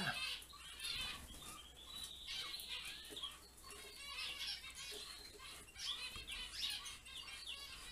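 Many caged finches chirping and calling over one another, with a longer trilling call about two to three seconds in and wing flutters as birds hop and fly about the cages.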